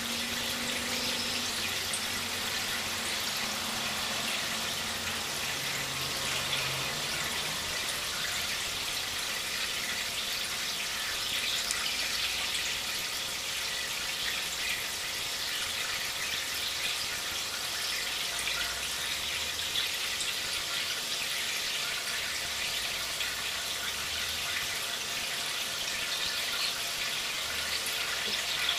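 Aquarium water trickling and splashing steadily, a constant hiss with no pauses.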